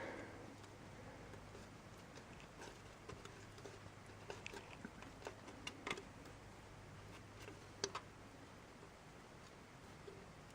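Faint, irregular light clicks and taps over a low steady hum, with two sharper clicks close together about eight seconds in.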